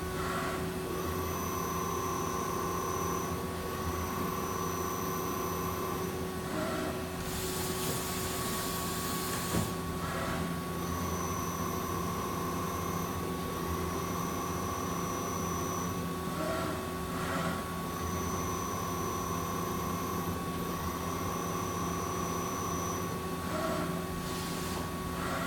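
Hartford Mighty Viper VMC2100 vertical machining center running through a machining cycle: a steady hum under a high whine that switches on and off in stretches of a few seconds, with a hiss lasting about two seconds about a third of the way in and a few light knocks.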